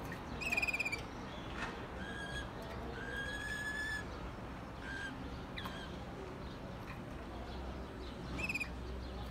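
Waterslager malinois canary singing in short, separated phrases: a fast trill about half a second in, a few short whistled notes, a held whistle of about a second, and another brief trill near the end, over a steady low hum.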